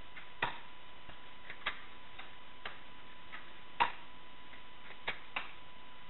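Airsoft guns firing: about half a dozen sharp, single snapping cracks at uneven spacing, the loudest a little before the 4-second mark, over a faint steady hiss.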